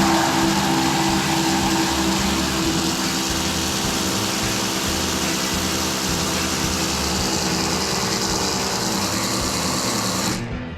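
Two impact drivers hammering continuously against magnetic-clutch loads in a driver-bit endurance test, a steady, loud rattling run with a constant pitch. They cut off abruptly near the end, when the test stops at the run time to bit failure.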